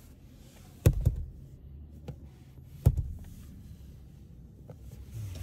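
Rear-seat fold-down centre armrest of a Honda Vezel dropping open with a dull thud, a double knock about a second in, then another knock of the armrest about two seconds later.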